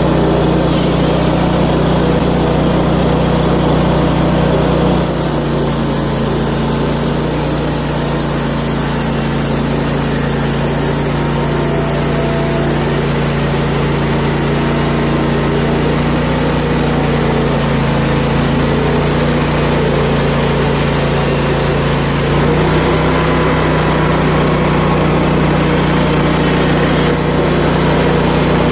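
Portable bandsaw mill's gasoline engine running steadily. About five seconds in the engine note drops under load and a high cutting hiss joins it as the blade goes through the log. Near the end of the cut, after about twenty-two seconds, the hiss stops and the engine speeds back up.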